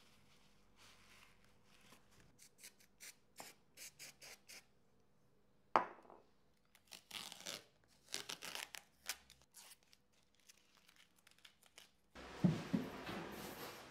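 Hands working masking tape and a cloth on a glued mitred joint in hardwood flooring strips, with a run of short crisp rubbing and peeling strokes, then a sharp tap. Several short hisses follow from a spray can of super glue activator, and a louder rustle comes near the end.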